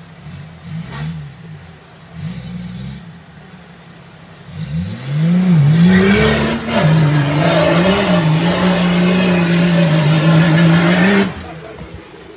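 Off-road 4x4 SUV engine revving: a few short revs, then the pitch climbs about halfway through and is held hard at high revs for around five seconds with a loud rush of noise. It cuts off suddenly near the end.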